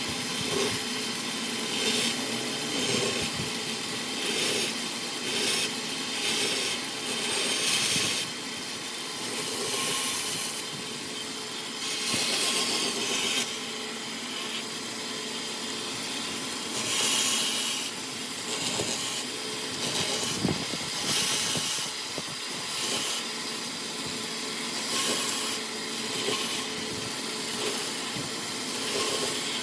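Wood being cut and shaped with a tool: uneven scraping, rasping strokes over a faint steady machine hum.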